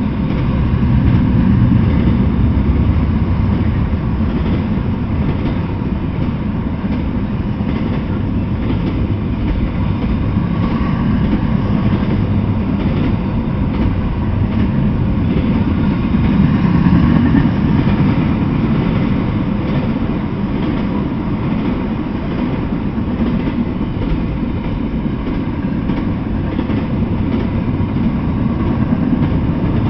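Double-stack intermodal freight train rolling past, its container-laden well cars making a steady low rolling noise of wheels on the rails.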